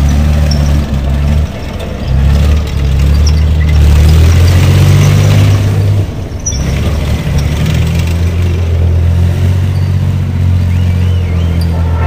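BMP-1-type tracked armoured vehicle driving and pivoting, its diesel engine running loud and low, easing off briefly about two seconds in and again about six seconds in before pulling again.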